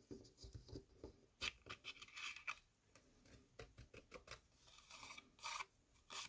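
Faint scratchy rubbing and rustling of fingers on a small paper card as loose gold gilding flakes are brushed off it. There are a few louder scrapes about a second and a half in, around two seconds, and again near the end.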